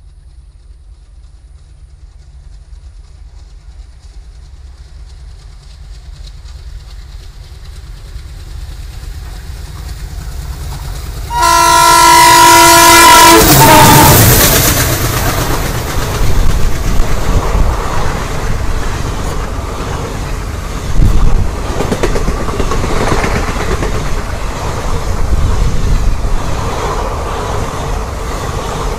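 WDM3A ALCO diesel locomotive approaching, its engine rumble growing steadily louder, then sounding one long multi-tone horn blast about 11 seconds in. It then runs close past with its passenger coaches, wheels clattering loudly over the rails.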